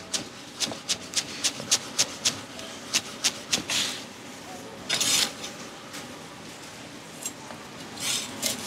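Chef's knife finely chopping chives on a wooden chopping board: quick, even taps of the blade on the board, about four a second, for the first few seconds, then a few longer scraping sounds of the knife on the board.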